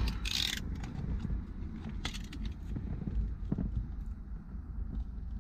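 Handling noise inside a car while a windshield is worked on with a hand tool: a short rustle about half a second in, then scattered light clicks and taps over a low rumble.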